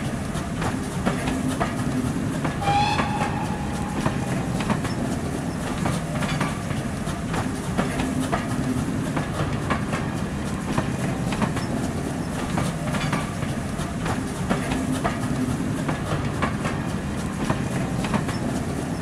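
Train coaches rolling along track: a steady rumble with repeated clicks of wheels over rail joints, and a brief high tone about three seconds in.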